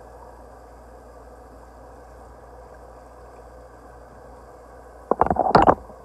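Bathroom tap running steadily into the sink. Near the end comes a brief loud burst of noise, much louder than the tap.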